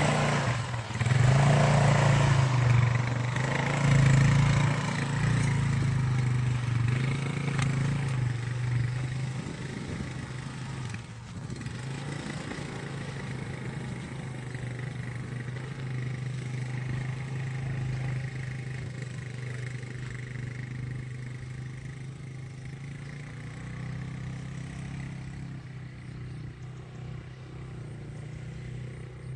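150cc ATV engine running steadily, loud at first and growing gradually fainter over the first ten seconds or so as it moves off, then carrying on at a lower level.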